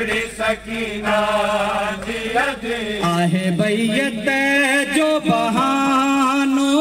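A man chants a noha, a Shia mourning lament, unaccompanied into a handheld microphone. He sings shorter phrases at first, then from about three seconds in long held notes with a wavering, ornamented pitch.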